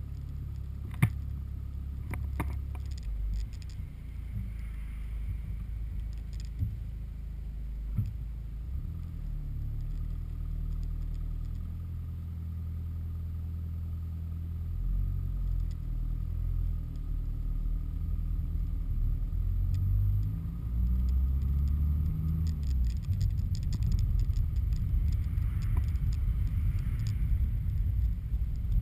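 Car engine and road noise heard from inside the cabin: the engine idles while the car waits in traffic, then its note rises as the car pulls away and accelerates. A few sharp clicks sound in the first several seconds.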